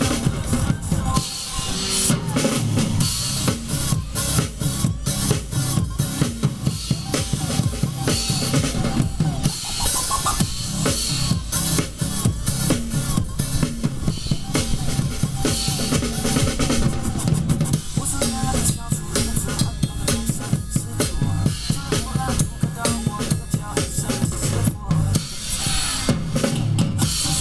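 Drum kit played live: kick drum, snare and cymbals keeping up a dense, fast beat as part of a song.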